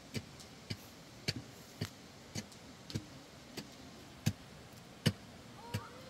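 A series of sharp knocks, about two a second, in a steady, even rhythm.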